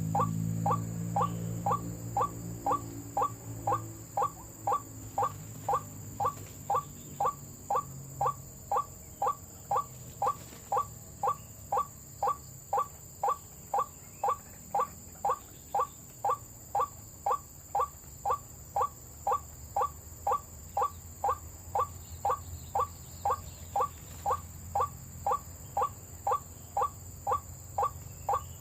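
White-breasted waterhen "ruak-ruak" call repeated at a strictly even pace, about two short notes a second, the lure call used to draw waterhens to the snare.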